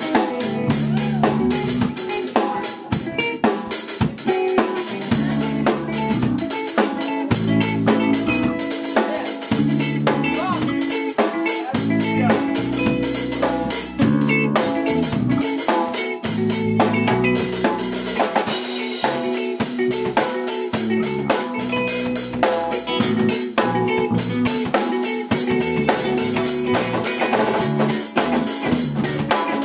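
A small rock band playing live: a drum kit with snare, rimshots and bass drum keeping a steady beat under electric guitar and bass guitar.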